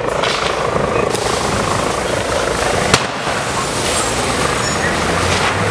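Loud, steady rumble of heavy vehicle engines, with one sharp crack about three seconds in.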